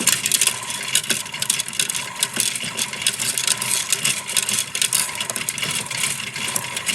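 Washmatic toy washing machine running, its small motor whining faintly over a busy, continuous rattle.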